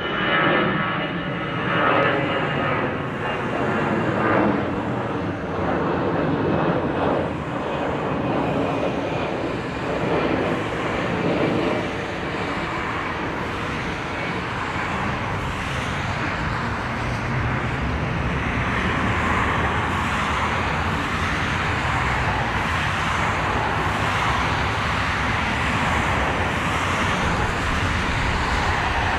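Airplane engine noise: a roar with a faint, slowly falling whine over the first dozen seconds, then a steady, even roar.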